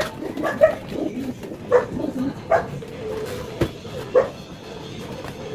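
A dog barking in short, separate yips at irregular intervals, with one sharp knock about three and a half seconds in.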